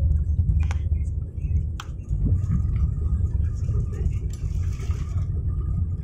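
Steady low rumble heard inside a jet airliner's cabin as it rolls along the runway after touchdown, with a couple of sharp rattles in the first two seconds.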